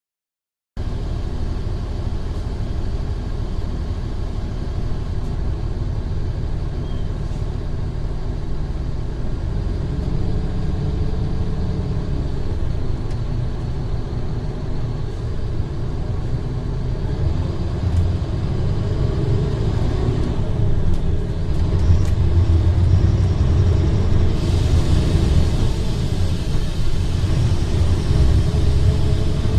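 Mercedes-Benz O500R BlueTec 5 bus's diesel engine running, a steady low rumble that starts abruptly just under a second in and grows louder in the last third, with a higher hiss joining in about five seconds before the end.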